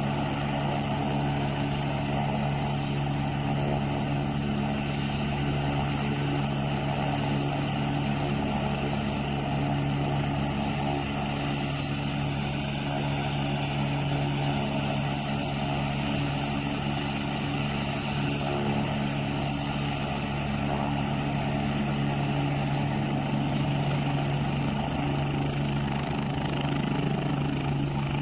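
AgustaWestland AW109 helicopter on the ground, its twin turboshaft engines running with the main rotor turning slowly: a steady low hum under a high turbine whine that rises toward the end.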